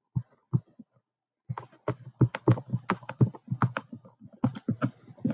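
Stylus tapping and scratching on a touchscreen while handwriting words: a few scattered knocks, a short pause, then a quick irregular run of light knocks from about a second and a half in.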